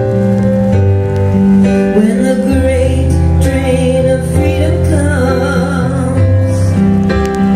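Live music: a woman singing over held keyboard chords. Her voice comes in about two seconds in and drops out near the end while the chords carry on.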